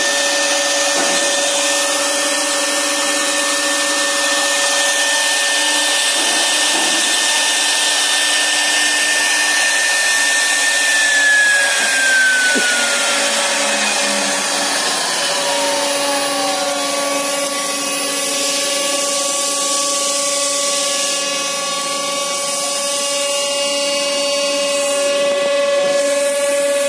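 CNC router spindle whining steadily over a hiss of cutting as it engraves aluminium composite panel. Partway through, a high tone slides slowly down in pitch over several seconds while a lower whine holds steady.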